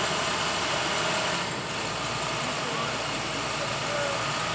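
Rollback tow truck's engine running steadily at idle, an even rumble with hiss.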